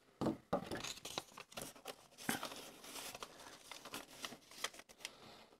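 A strip of gummed paper tape being handled and laid against a cardboard box flap: light, irregular rustles, scrapes and small taps of paper on cardboard.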